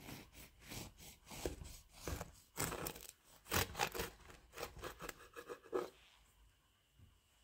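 A knife sawing back and forth through a baked poppy seed yeast cake on a wooden board, the blade rasping through the crust in quick repeated strokes. The strokes stop about six seconds in.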